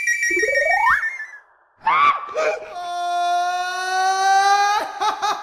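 Whistling, flute-like tones, most likely a bansuri (bamboo flute): a high held note with a quick upward slide about half a second in. After a brief vocal sound comes a long steady lower note of about two seconds that cuts off suddenly.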